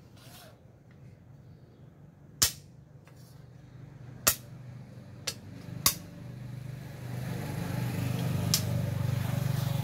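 Wooden xiangqi pieces clacked down hard on the board: five sharp clacks, the loudest about two and a half, four and six seconds in. From about seven seconds in, a low engine drone builds up underneath.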